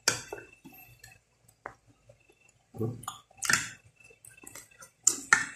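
Metal spoon clinking and scraping against a plate of goat-leg soup as meat is worked off the bones, with eating sounds in between. Sharp clinks come at the start and again near the end.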